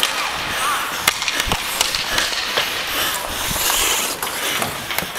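Ice skate blades scraping across rink ice, with repeated sharp clacks and knocks of hockey sticks and pucks against the ice and boards.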